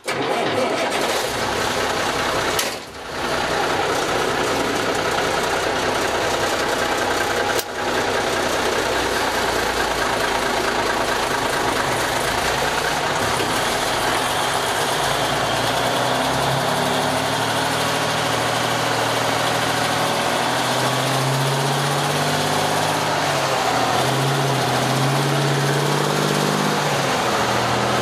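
Straight-piped Cummins NHC-250 inline-six diesel in a 1965 White Freightliner cabover, heard from inside the cab running loud under way. The sound drops out briefly twice, about three seconds and about eight seconds in. Later the engine note rises and falls.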